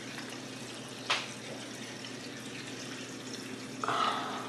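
PC water-cooling pump running with a steady hum while water trickles and gurgles through the custom loop as air is still being worked out of it. A sharp click about a second in and a brief tone near the end.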